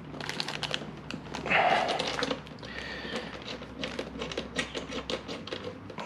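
A dog panting rapidly in quick, short breaths.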